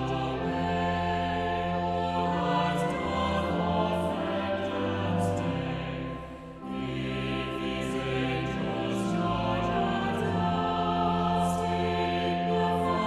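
A choir singing a hymn with sustained low accompaniment, with a short breath-pause between phrases about halfway through.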